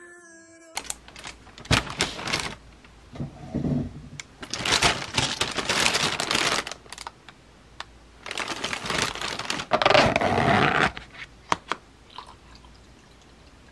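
Thin plastic carrier bag rustling and crinkling in several long bursts as takeout is unpacked, then a few sharp clicks of a plastic food-container lid near the end.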